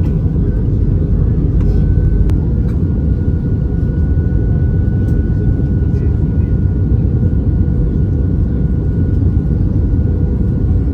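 Airbus A320 cabin noise on final approach: a loud, steady low rumble of engines and airflow with a thin steady whine over it. There is a short click about two seconds in.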